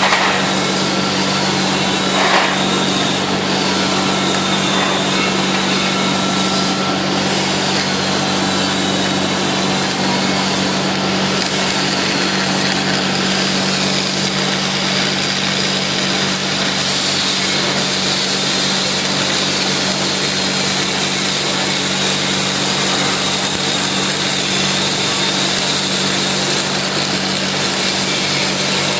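Stick welding on an AC arc welder: the electrode's arc crackles and sizzles steadily as a bead is run, over a steady low hum.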